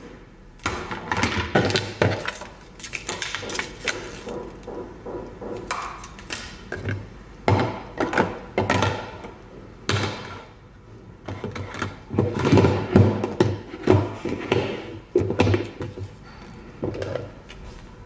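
Hard plastic food storage containers and their snap lids clacking and knocking against each other and the wooden tabletop as they are handled, nested and set down. The clacks come irregularly, in clusters, busiest about two-thirds of the way through.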